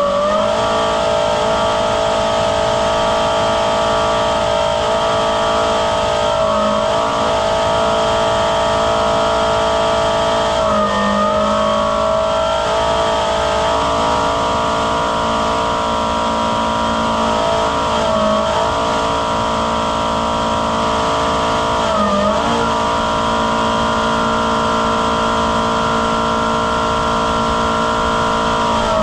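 Buffalo Turbine Cyclone hydraulic-driven turbine blower running at full speed with a loud, steady whine over a rush of air. Its pitch dips briefly and recovers four times.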